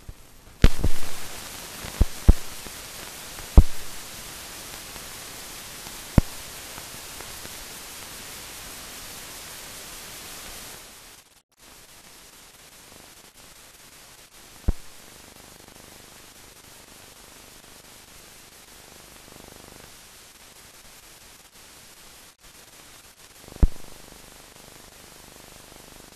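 Steady hiss of an old film soundtrack with no narration, broken by sharp pops and clicks, several close together in the first few seconds and a few more later. The hiss drops to a lower level about eleven seconds in.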